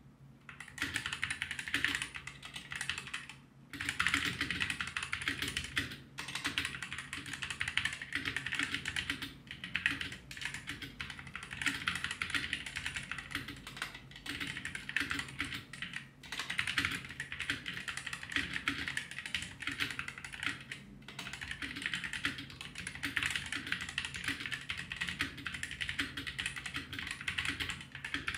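Continuous fast typing on a Blitzwolf BW KB2 mechanical keyboard with Gateron Yellow optical linear switches: a dense stream of key clicks that starts about a second in and pauses briefly once before running on.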